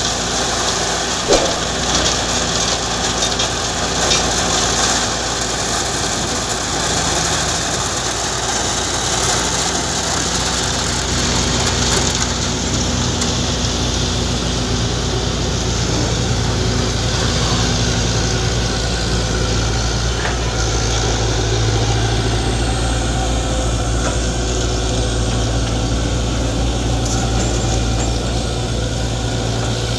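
Heavy diesel engines of excavators and a concrete mixer truck running steadily. A couple of sharp knocks in the first few seconds come as an excavator bucket dumps material into the mixer's hopper.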